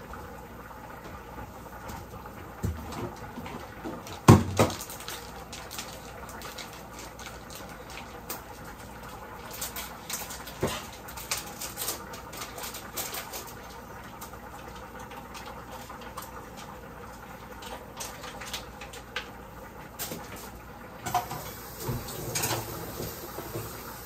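Kitchen handling sounds: scattered clinks and knocks of utensils and dishes, with one loud knock about four seconds in and clusters of quicker clicks later.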